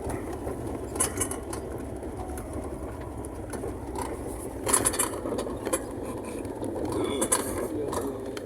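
Car driving on a rough road, heard from inside the cabin: steady engine and road rumble with a few short knocks and rattles as it goes over bumps.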